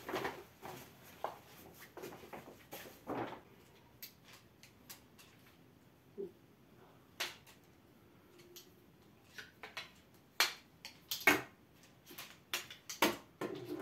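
A Quechua MH500 folding camping chair being taken down by hand: the fabric seat rustles as it is pulled off the frame, then the poles clack and click as they are folded together, with the sharpest knocks in the last few seconds.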